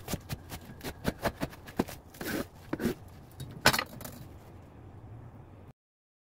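Kitchen knife cutting lengthwise through a napa cabbage on a cutting board: a quick run of crisp crunches and snaps from the stalk. The loudest crunch comes a little past the middle, and the sound cuts off abruptly near the end.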